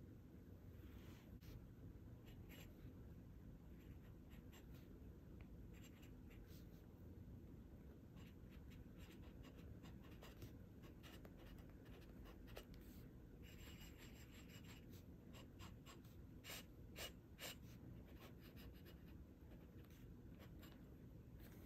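Faint scratching and light ticking of a glass dip pen nib writing on notebook paper, over a low steady room hum.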